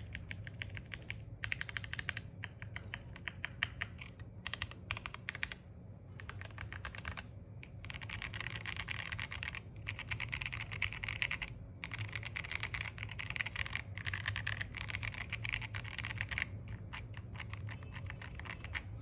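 Fast typing on a custom mechanical keyboard, an Exclusive E7v2 with Gateron CAP Golden Yellow V2 linear switches, KAT-profile BoW keycaps and an FR4 plate. The keystrokes come in quick runs of rapid clicks, broken by short pauses.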